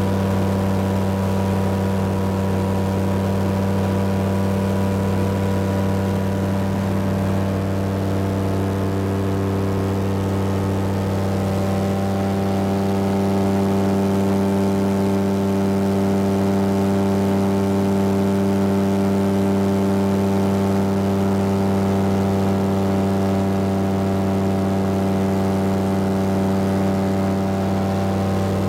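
Rotax 912S flat-four engine and propeller of a Titan Tornado light aircraft running steadily in flight, heard from inside the cabin as a constant drone; the pitch shifts a little and it grows slightly louder about twelve seconds in.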